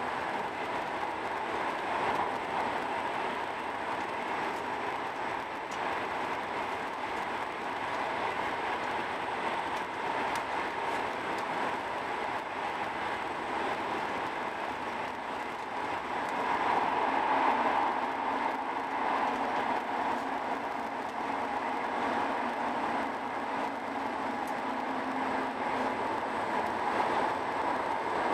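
Cabin noise of a Eurostar Italia train running at speed: a steady rushing hum inside the passenger carriage. It swells slightly about halfway through, and a faint low drone joins it for several seconds.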